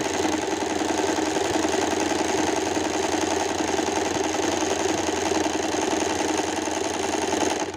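Usha Stitch Magic electric sewing machine running steadily at speed, sewing a dense decorative square-fill stitch (pattern K, stitch width 5, stitch length between 0 and 1). It stops abruptly at the end.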